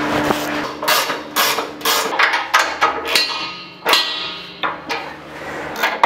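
Irregular metal-on-metal clinks and knocks from hand tools and fittings being worked on a steel air-compressor tank and its mounting, with one knock leaving a short metallic ring about three seconds in.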